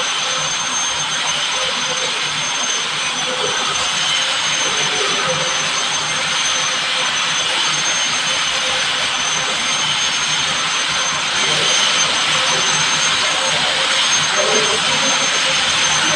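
Milling machine running: a steady loud hiss with a thin high whine held over it.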